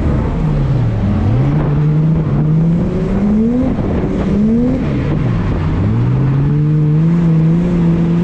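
Nissan Skyline's engine revving hard under load on track. The pitch falls sharply about a second in and again about five seconds in, then climbs back up in rising steps each time.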